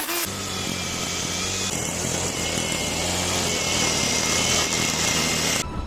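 Angle grinder motor running steadily at speed: a high whine over a low hum, starting abruptly about a quarter second in and cutting off near the end.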